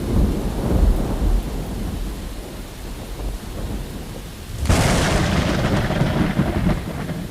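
Thunder sound effect: a low rumble dying away, then a sudden sharp crack of thunder a little over halfway through that rolls on and then cuts off abruptly.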